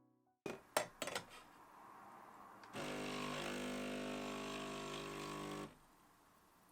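A few sharp clicks, then a small electric motor in a coffee-making appliance runs steadily for about three seconds and cuts off suddenly.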